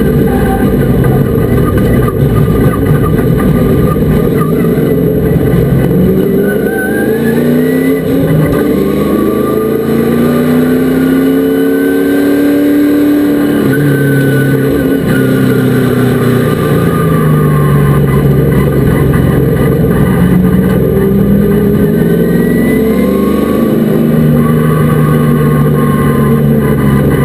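Race truck engine running at racing speed, its pitch climbing for several seconds as it accelerates, then falling as it slows, and climbing again near the end.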